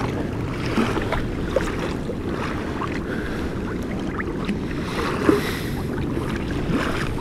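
Water lapping and splashing against a kayak's hull on a choppy sea, with small splashes scattered over a steady low rush of wind on the microphone.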